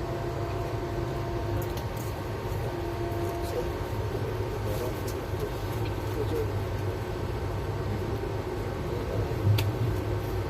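Steady low rumble of a moving passenger train heard from inside the coach, with a brief louder knock near the end.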